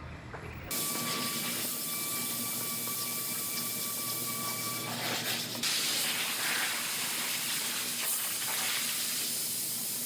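Sandpaper on a hand sanding board rasping over cured body filler on a car's quarter panel: a steady scratchy hiss that starts about a second in.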